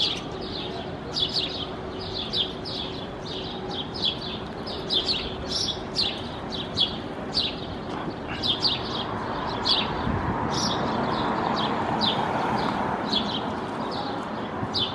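Sparrows chirping repeatedly in short, high cheeps, several every second, while they feed on dead bugs on a car's front bumper. Under them runs a steady background rush that grows louder for a few seconds midway.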